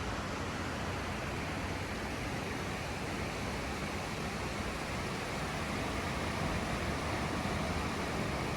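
Steady, even rush of ocean surf washing onto the beach at low tide.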